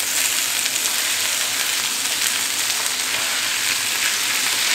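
Blanched asparagus frying in bacon fat and butter in a skillet, a steady sizzle as it is tossed with tongs.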